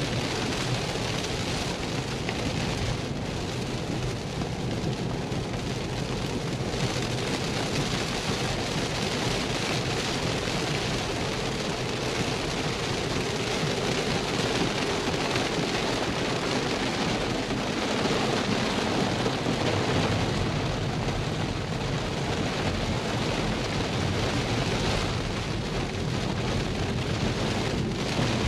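Steady rain falling on a Tesla's roof and windshield, mixed with tyre hiss on the wet road, heard from inside the cabin of the moving car.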